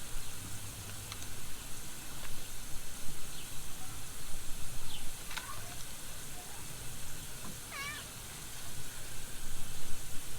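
Cat giving a few short meows, the clearest about five seconds in and a wavering one near eight seconds in.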